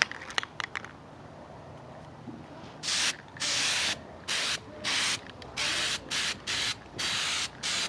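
Aerosol spray-paint can hissing in about nine short bursts, starting about three seconds in, as paint goes onto a bicycle frame in quick passes. A few light clicks come in the first second.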